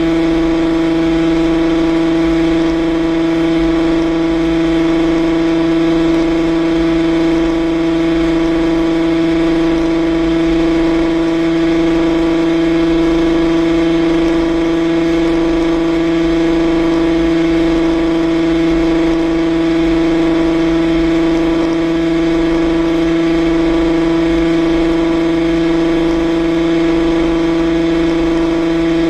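Yamaha RXZ's 135 cc two-stroke single-cylinder engine running at constant revs as the motorcycle cruises along a highway. Its pitch holds steady throughout.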